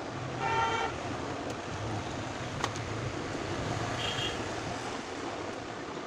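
A short vehicle-horn toot about half a second in, over steady background traffic noise. A single sharp click follows a couple of seconds later, and a brief high tone comes near the end.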